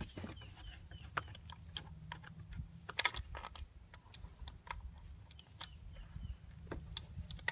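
Scattered small metal clicks and taps as an outboard carburetor and its cast intake manifold are handled and lined up by hand, with a cluster of louder clicks about three seconds in. A low steady hum runs underneath.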